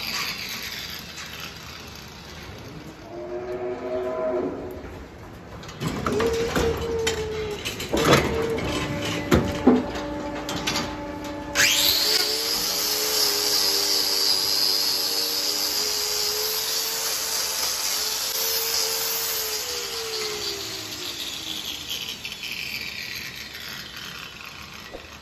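A hand-held angle grinder with a hoof-trimming disc starts suddenly about halfway through and grinds the cow's hoof horn for about eight seconds, with a hiss and a whine that rises and falls under load, then fades out. Before it come a few sharp knocks.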